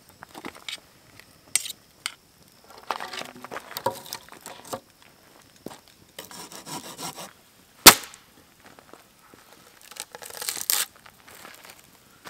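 Crunching and scuffing on a gravelly shore with the handling of wood and cooking gear at a campfire, broken by sharp cracks; the loudest crack comes a little under eight seconds in.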